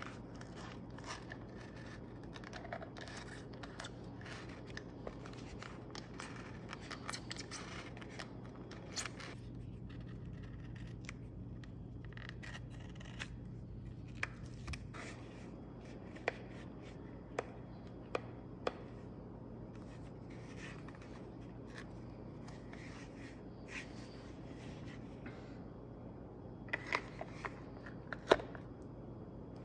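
Utility knife blade slicing through leather in short strokes, trimming excess from the edges of a glued leather sheath, with a few sharp clicks in the second half.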